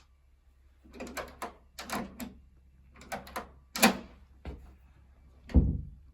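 Metal doorknob and mortise lock hardware being worked: a run of clicks and rattling knocks, with a heavier thump near the end.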